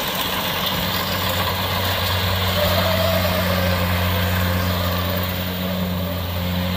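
Kubota DC70 Plus rice combine harvester at work, its diesel engine running steadily under load as it cuts and threshes standing rice; a constant low hum runs under a broad mechanical noise.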